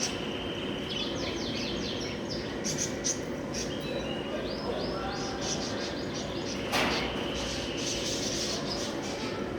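Caged pet-store birds chirping: many quick, high chirps in runs over a steady hum of store background noise, with one brief louder noise about seven seconds in.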